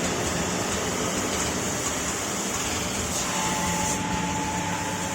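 Wet-belt CNC sanding and deburring machine running steadily with a constant hiss and low hum; a thin whine joins in about three seconds in.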